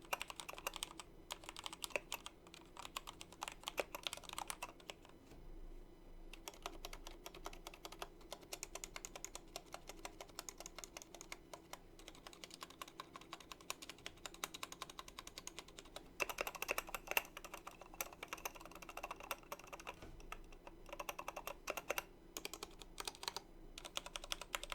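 Typing on a Royal Kludge RK61 mechanical keyboard with RK Red linear switches: a fast, steady run of light key clicks, thinning briefly about five seconds in and getting louder for a few seconds past the middle.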